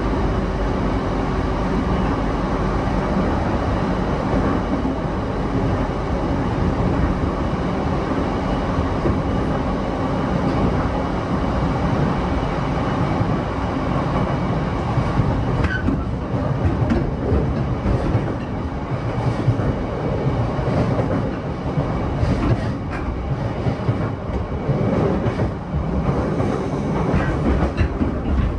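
Running noise inside a JR E233-7000 series electric commuter train at speed: a steady rumble of wheels on the rails. From about halfway on, short clacks of the wheels over the track come through more often.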